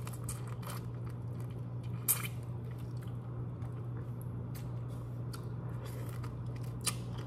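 Close-miked eating of broiled head-on shrimp: biting, wet squishy chewing and small crackles of shell, with a sharp crack about two seconds in and another near the end. A steady low hum runs underneath.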